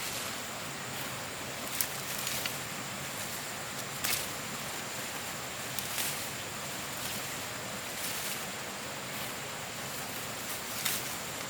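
Steady outdoor background hiss with a faint, constant high-pitched tone, broken by a few sharp clicks or snaps: about five, spread unevenly through the stretch.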